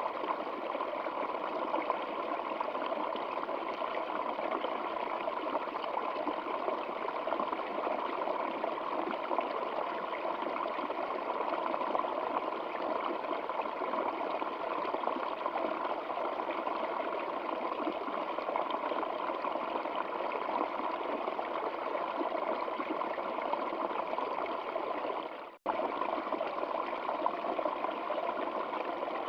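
Stream water flowing, a steady rushing and trickling. It cuts out for a split second near the end, then resumes.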